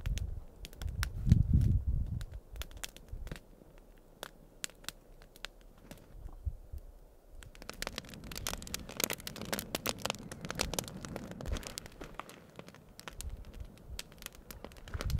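Wood fire crackling, with scattered sharp snaps and pops, thinning out for a few seconds mid-way and then coming back thick. A dull low rumble swells about a second in.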